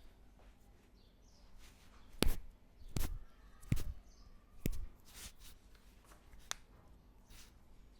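Hands striking during a head massage: four sharp slaps about a second apart, then a few fainter ones.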